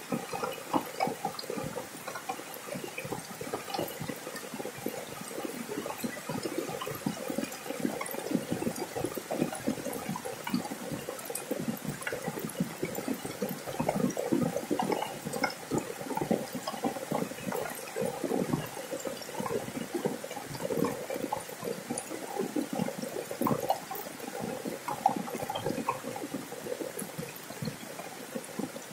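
Rain falling on a corrugated metal roof: a dense, uneven stream of drop hits that swells a little around the middle.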